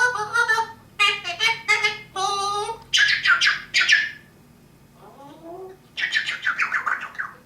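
A parrot squawking and chattering in quick runs of short calls, going quieter about four seconds in, then a fast rattling run of calls near the end.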